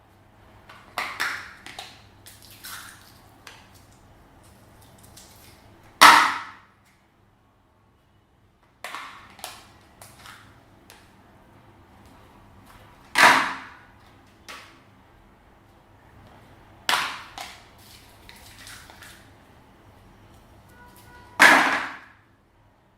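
Slime being squeezed and mixed by hand, with sharp crackling pops as trapped air bursts. The pops come in bursts every few seconds, three of them louder than the rest.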